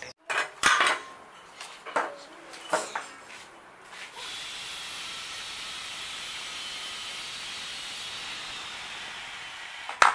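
A few sharp knocks and clatters of hard parts being handled, then a steady hiss that starts about four seconds in and stops with a sharp click near the end.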